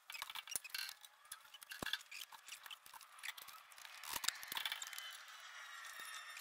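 Scattered light metallic clicks and clinks, with a few faint squeaks in the second half, as an engine and gearbox hanging from an engine crane are shifted by hand into the chassis.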